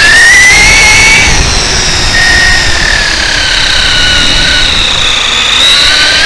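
Brushless electric motor and gears of a Traxxas E-Revo 1/10 RC truck whining under the onboard camera as it drives. The pitch climbs for about a second, drops, sags slowly, then climbs again near the end, over rumbling tyre and wind noise.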